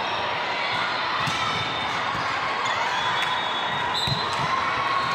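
Indoor gym during a ball game: a steady hubbub of crowd chatter, with a ball thumping on the floor and short high shoe squeaks on the court now and then.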